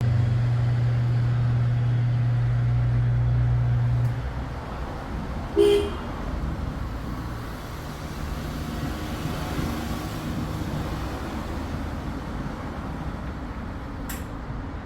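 Car engine running steadily, with a loud low hum that drops off about four seconds in, leaving a quieter rumble. A short beep sounds about six seconds in, and faint clicks follow.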